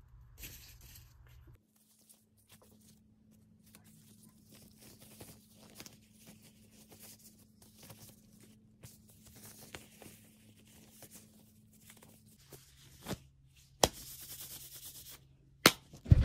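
Clothing rustling and rubbing close to the phone's microphone as a shirt is handled overhead, with a few sharp knocks near the end.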